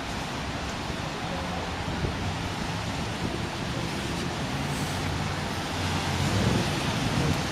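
Optare Solo midibus pulling away, its engine running steadily under a constant hiss of rain.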